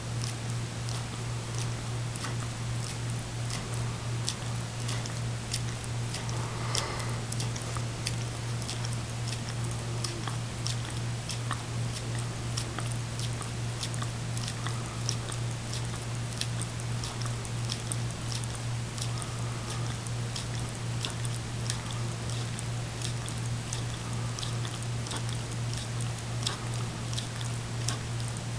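A greyhound licking dog ice cream out of a small cup: a continuous run of quick, wet lapping clicks, several a second. A steady low hum sits underneath.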